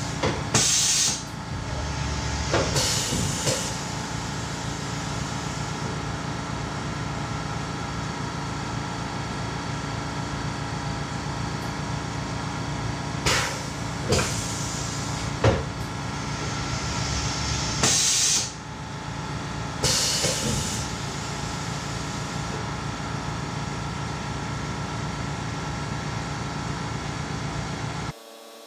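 Tormach 1100MX CNC mill's automatic tool changer being tested: several short hissing bursts of compressed air as the pneumatic tool changer cycles, over a steady machine running noise. The running noise cuts off suddenly near the end, leaving a low hum.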